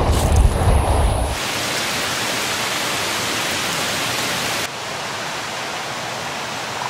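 A vehicle's engine is heard briefly at the start, then gives way to a steady rush of water, like a falling or rushing stream. About two-thirds of the way through, the rush turns a little quieter and thinner.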